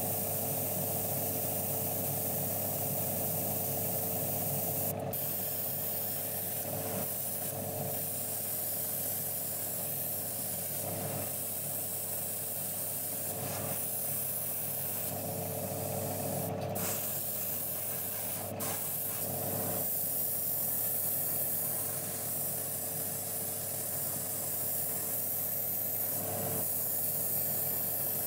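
Airbrush spraying paint: a steady hiss of air over the continuous hum of a running motor. The hiss cuts out briefly about three times.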